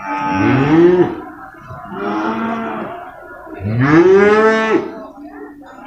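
Water buffalo calling: three bawling calls of about a second each. The first and last rise in pitch, and the last, about four seconds in, is the loudest.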